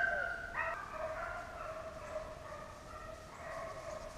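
A pack of deer-running hounds baying in chorus on a deer's trail: long, drawn-out notes that overlap and carry on without a break.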